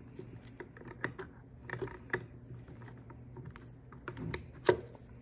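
Irregular light metallic clicks and taps from a feeler gauge being worked against the throttle stop and linkage of a Mercedes 560SEL throttle body while the closed-throttle switch gap is set. The sharpest click comes near the end, over a low steady hum.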